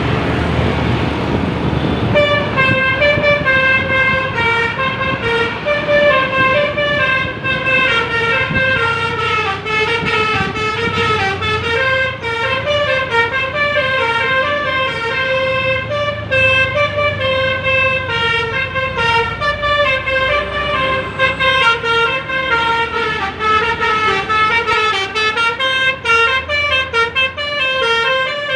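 A bus's telolet musical horn plays a rapid, repeating melody of several pitched notes, starting about two seconds in, over the low rumble of a bus engine.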